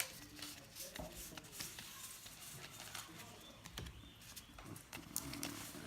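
Faint, irregular clicks and light tapping of Magic: The Gathering cards being handled and flipped through one by one, over a low steady room hum.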